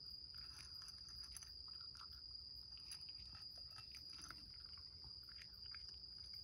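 Faint, irregular crunching of a cat chewing dry kibble from a bowl, over a steady high-pitched whine.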